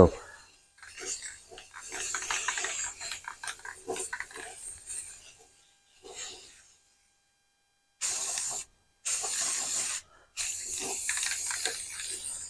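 Aerosol spray paint can: scattered rattling and clicking for the first few seconds, then three bursts of spray hiss that start and stop sharply, a short one about eight seconds in and two longer ones after it.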